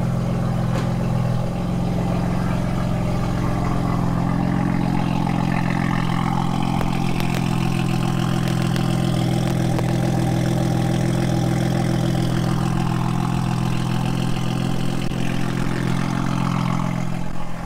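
BMW M4's S55 twin-turbo inline-six idling steadily through a VRSF high-flow single midpipe with the exhaust valves open: a low, even exhaust note that sounds mean.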